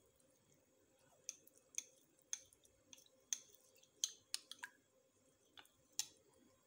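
Spoon clicking against the side of a glass bowl while stirring cornflour into water: faint, sharp ticks about two a second, uneven in strength.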